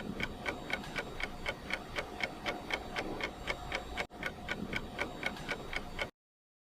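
Steady ticking, about four even ticks a second, like a clock, with a brief break about four seconds in and stopping shortly before the end.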